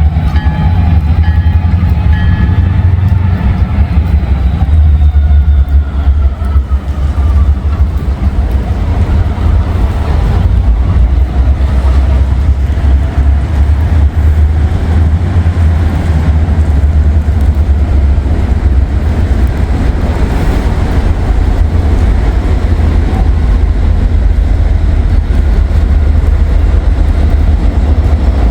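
Diesel switching locomotive and rail cars working, a loud steady low rumble. A few high whining tones slide down in pitch over the first few seconds and fade.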